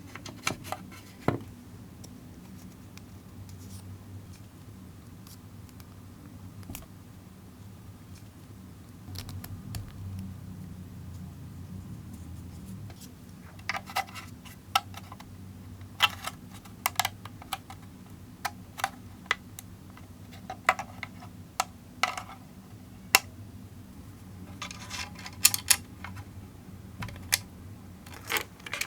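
Irregular sharp clicks and taps of hard 3D-printed plastic parts being handled and fitted together, in small clusters, over a steady low hum.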